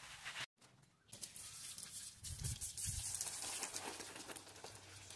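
Water from a garden hose spraying and pattering against a bare brick wall, a steady hiss with fine spatter, wetting the brickwork before plastering. It cuts out briefly about half a second in, then resumes.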